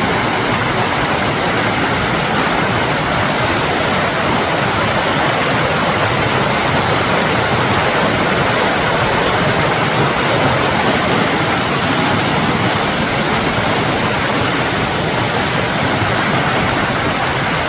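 Snowmelt-swollen mountain creek rushing, a loud, steady wash of water.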